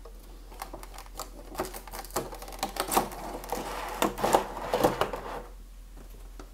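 Cardboard box insert and clear plastic blister packaging being slid out of a box and handled: scraping, crinkling and a run of small clicks and taps, quieter near the end.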